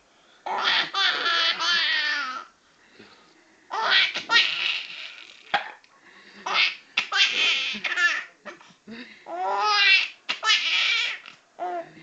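Baby laughing in four long bouts of high, wavering laughter with short pauses between them.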